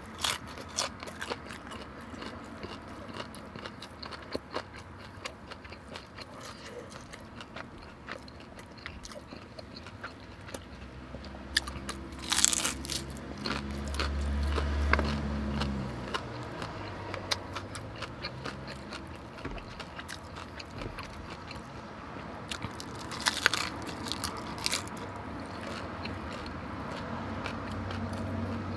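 Close-up eating of birria tacos: crunchy bites into the fried tortillas and steady chewing, with louder crunches about 12 and 23 seconds in. A low rumble swells and fades around the middle.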